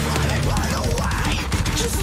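Loud heavy pop-rock band music: electric guitar, bass and drums with a lead vocal line sliding in pitch.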